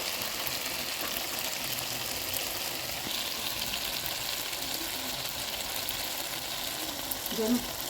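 Tomatoes sizzling in a frying pan: a steady hiss with fine crackling throughout.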